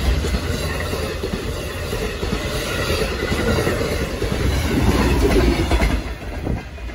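Amtrak passenger train passing at speed: a steady rush and rumble of stainless-steel coaches with wheels clacking over the rail joints, easing off near the end as the last car goes by.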